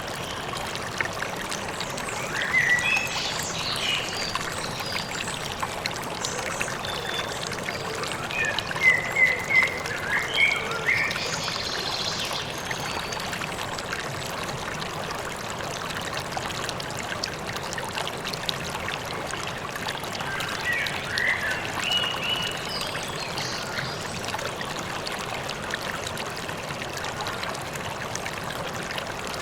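River water running steadily, with birds chirping in short scattered bursts over it, loudest about nine to eleven seconds in.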